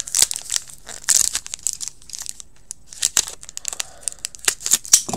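Foil trading-card pack wrapper crinkling and tearing as a pack of 2019-20 SP Authentic hockey cards is ripped open by hand, in irregular spells of sharp crackling.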